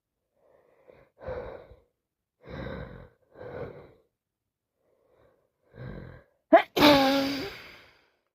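A sick woman's sneeze: several gasping in-breaths building up over a few seconds, then one loud sneeze near the end, a sharp burst running straight into a long voiced release.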